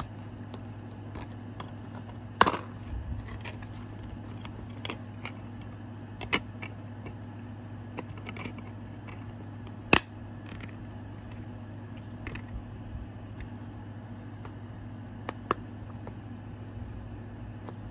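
Plastic clicks and taps from a DVD case and its packaging being handled, scattered and irregular, sharpest about two and a half and ten seconds in, over a steady low hum.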